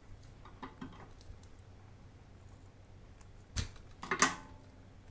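Double-sided tape being handled: faint rustling, a knock about three and a half seconds in, then a short, louder crackle of tape just after.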